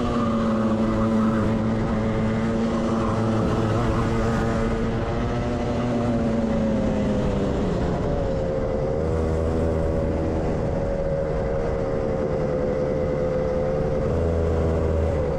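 Kart engine running at steady low revs as the kart coasts off the track and into the pits; its pitch steps down about eight seconds in and starts falling again right at the end as it slows to a stop.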